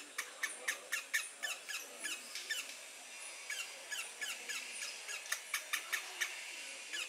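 Baby howler monkey squeaking: a quick run of short, high-pitched chirps, several a second, with a brief lull about midway.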